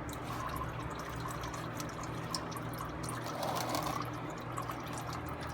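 Used engine oil trickling and pouring steadily into a drain pan as it drains from the engine.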